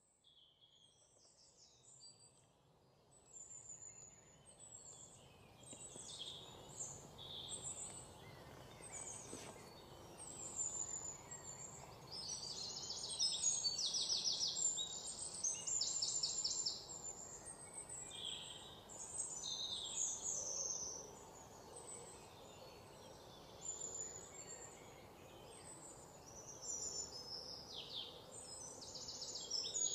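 Birds singing in woodland: many chirps and several fast trills from more than one bird, over a steady hiss of outdoor background noise. The sound fades in over the first few seconds, and the trills are loudest about halfway through and again near the end.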